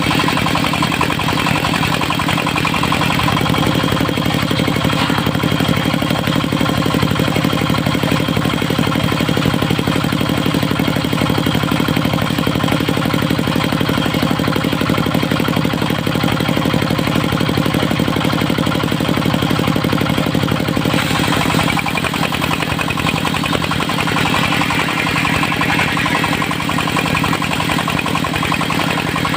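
Engine of a mobile circular-saw sawmill running steadily, its note shifting about three seconds in and again about twenty-one seconds in.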